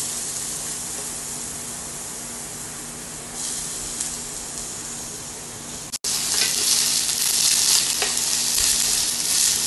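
Chopped onion and capsicum sizzling in oil in a stainless steel kadai while being stirred. The sizzle cuts out briefly about six seconds in and is louder afterwards, with scraping strokes.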